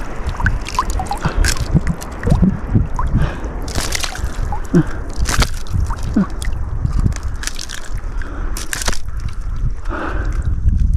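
Shallow seawater sloshing and gurgling around a wader on a reef flat, over a steady low wind rumble on the microphone, with a few short sharp noises scattered through.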